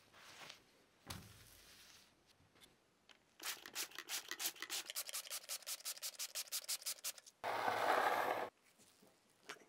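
Hand sanding: rapid back-and-forth rubbing strokes, about four or five a second, for about four seconds, followed by a louder continuous rasp lasting about a second. A soft knock comes about a second in.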